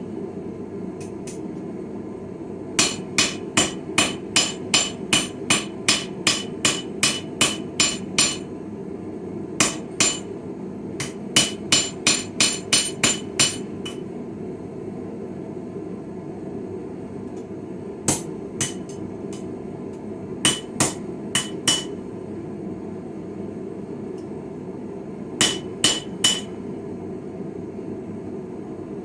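Blacksmith's hammer striking hot steel on a Viking-style anvil while forging a chisel: runs of ringing blows about two a second, with pauses between runs and a few last blows near the end. A steady low rushing noise runs underneath.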